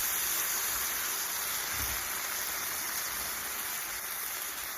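Chuck steak strips, garlic, stewed tomatoes and green chilies sizzling in a hot discada over an outdoor burner: a steady, even sizzle.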